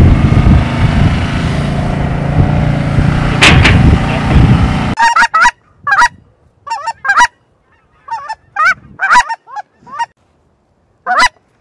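Heavy wind rumble on the microphone, cut off suddenly about five seconds in. Then a string of goose honks in short groups of one to three calls, with silence between.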